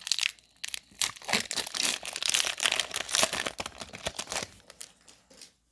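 Foil Pokémon booster pack wrapper crinkling and being torn open by hand, a dense crackle that dies down about four and a half seconds in.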